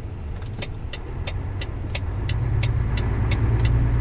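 Turn-signal indicator ticking steadily in a truck cab, about three clicks a second, over the low drone of the truck's diesel engine, which grows louder about two seconds in.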